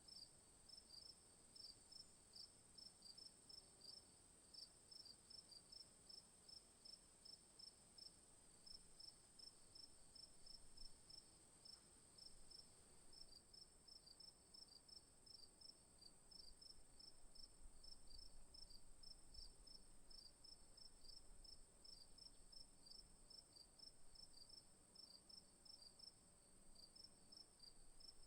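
Faint insects: rhythmic chirping, a few chirps a second, over a steady high-pitched insect drone.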